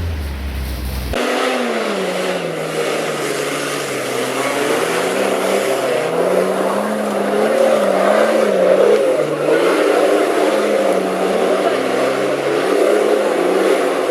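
Off-road 4x4's engine working under load, its pitch rising and falling as the throttle is worked on and off. A different, lower steady sound cuts off abruptly about a second in.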